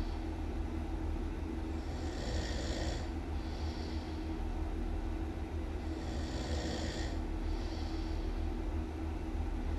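A person snoring in a slow, even rhythm, about one breath every four seconds, each a longer snore followed by a shorter breath, over a steady low hum.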